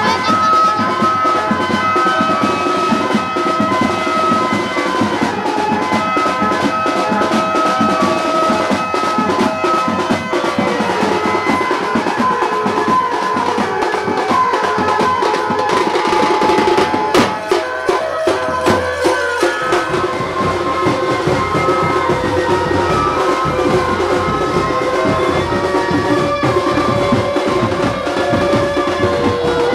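Music with drumming and a melody line. A few sharp drum strokes come near 18 seconds, and about 20 seconds in a deeper bass part comes in.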